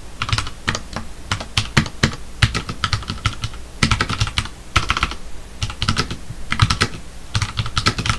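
Typing on a computer keyboard: quick, irregular runs of keystrokes with brief pauses between them.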